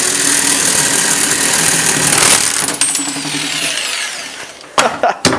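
Handheld power tool working on sheet metal, running with a steady hiss, then winding down about four seconds in. Two sharp metallic clicks follow near the end.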